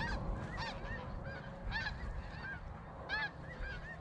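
A flock of snow geese calling: a steady stream of short, high, yelping honks, several a second, overlapping one another.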